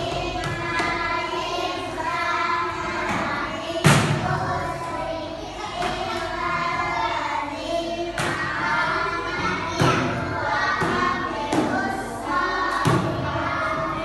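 A group of children singing together, broken by several loud thumps, the strongest about four seconds in.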